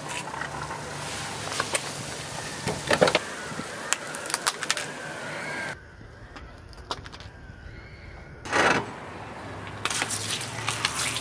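Clicks and scrapes of a mobile phone being handled and set down on gravel, then one loud crunch about eight and a half seconds in as a car tyre rolls over the phone and crushes it.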